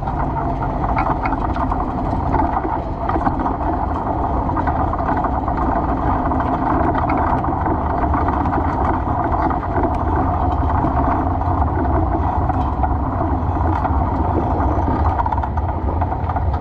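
A 410 sprint car's V8 engine running, at a steady level throughout.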